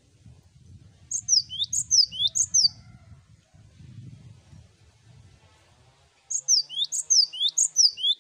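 Cinereous tit singing: two bursts of three sharp, high notes, each note sweeping quickly downward, the second burst starting about five seconds after the first.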